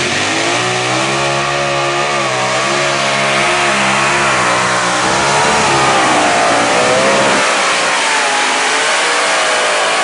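Light unlimited modified pulling tractor at full throttle, dragging the weight-transfer sled down the track. The loud engine note wavers up and down in pitch as it pulls.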